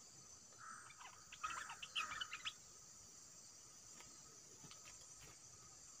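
Bulbul (dok taeng bird) giving a quick burst of short, sharp chattering calls for about two seconds, about a second in, the harsh 'rik' scolding call. A steady high drone of insects runs underneath.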